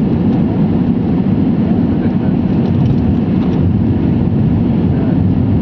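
Steady cabin noise inside an Airbus A320 on approach with flaps extended: an even roar of engines and airflow, heaviest in the low end.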